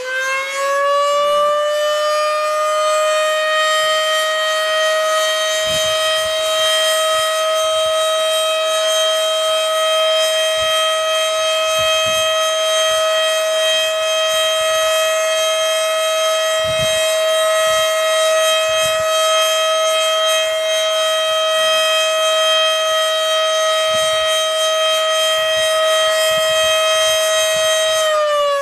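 Federal Signal Model 5 outdoor warning siren sounding its short alert test signal. Its pitch finishes winding up within the first couple of seconds, holds one steady, loud tone with overtones, and starts winding down near the end.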